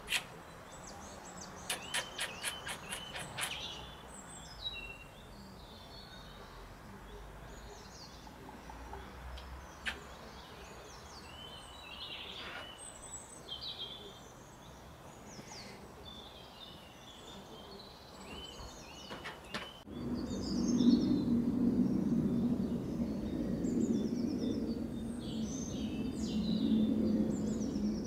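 Garden birds chirping and calling on and off, with a quick run of sharp ticks a couple of seconds in. About two-thirds of the way through, a louder steady low hum comes in and runs on under the birdsong.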